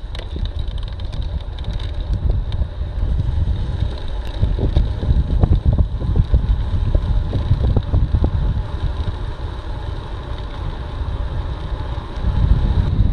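Wind buffeting the microphone of a camera on a road bike descending at speed: a steady low rumble, with faint clicks scattered through it.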